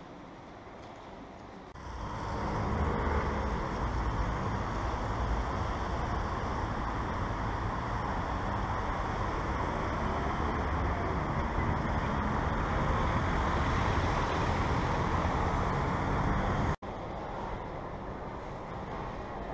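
Steady city street traffic, the rumble and hiss of passing cars and motor scooters, starting suddenly about two seconds in. Near the end it cuts abruptly to the quieter hum of an underground metro platform.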